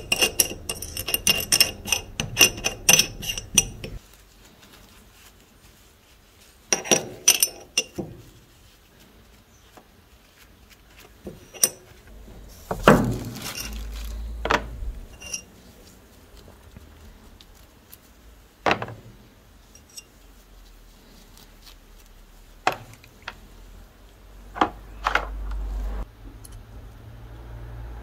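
Small metal revolver parts clinking and scraping in a dish as they are scrubbed with a brush, a quick run of ringing clinks, then a shorter burst a few seconds later. After that come scattered single knocks and clinks as the parts and containers are handled.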